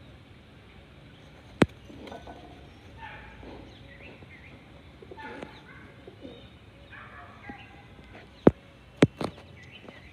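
Rock pigeons cooing, with small birds chirping. Several sharp knocks are the loudest sounds: one about a second and a half in and three close together near the end.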